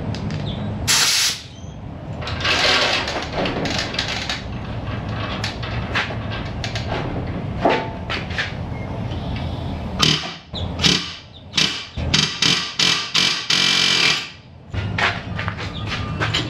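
Pneumatic air hammer rattling against a seized ball joint stud whose end has mushroomed, trying to drive it out of the steering knuckle. It runs in long stretches at first, then in a string of short bursts near the end.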